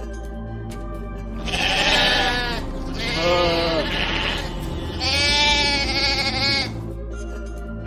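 Sheep bleating three times, each bleat a second or more long, over steady background music.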